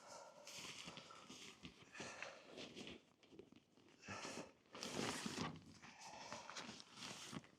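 Faint footsteps and rustling handling noise from pulling at the RV's tire covers, with a louder scraping rustle about five seconds in.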